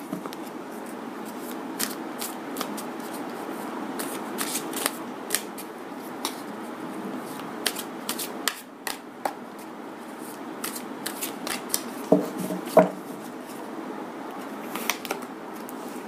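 A deck of tarot cards shuffled by hand: cards sliding and snapping against each other in quick, irregular clicks, over a faint steady hiss.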